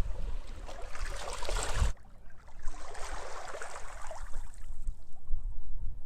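Sea waves washing on a beach, with wind rumbling on the microphone. The wash cuts off suddenly about two seconds in, then another wave swells and fades away.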